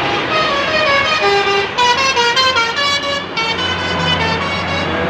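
Basuri telolet musical air horn playing a quick tune of short notes that step up and down in pitch, about four a second. A vehicle engine hums low underneath in the second half.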